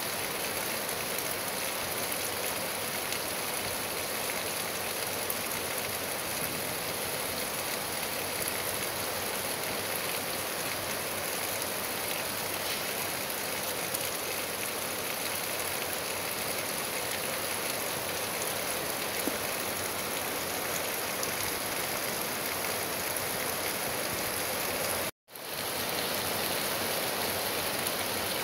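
Steady rain falling on trees and grass, an even hiss with no distinct drops standing out. The sound cuts out for a moment near the end and then carries on unchanged.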